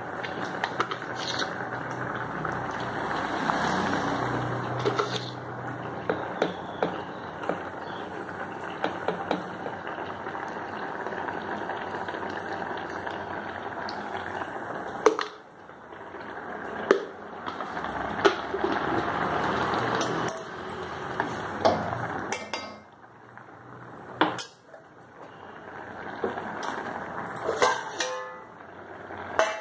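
Steel kitchen pots, lids and ladles clinking and knocking against each other, with several sharp separate knocks in the second half. Under them, a steady rushing hiss in the first half.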